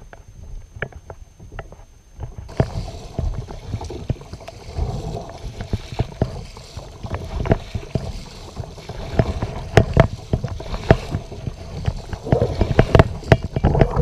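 Kayak paddle strokes splashing through the water, with many sharp knocks. The sound grows louder and splashier from about two and a half seconds in.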